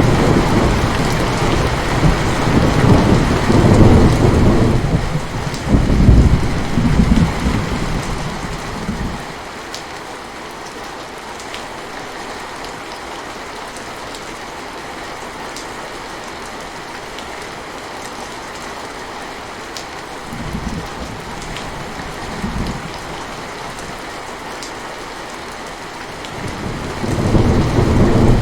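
Steady heavy rain hissing, with thunder rolling: a long rumble over the first nine seconds or so, a fainter one about two-thirds of the way through, and another building near the end.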